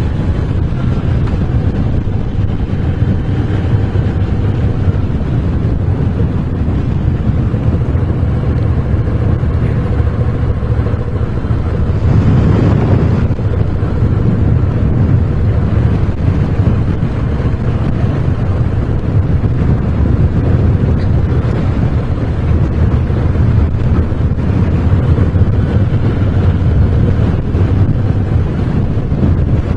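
Moto Guzzi V7 Special's 750 cc air-cooled V-twin engine running on the move, with wind rushing over the microphone. About twelve seconds in the sound grows louder and brighter for a second or two.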